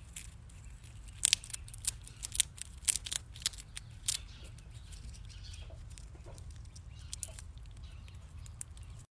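Fox squirrel gnawing and crunching food held in its paws: a run of sharp, crisp cracks, thickest in the first four seconds and thinning out after, over a low steady rumble.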